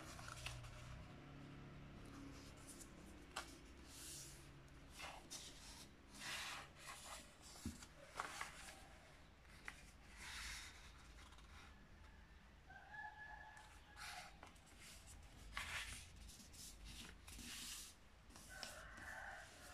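A4 printer paper being folded by hand on a table: faint rustling and sliding strokes as the folds are creased and pressed flat. Twice, near the middle and near the end, a faint pitched call of about a second sounds in the background.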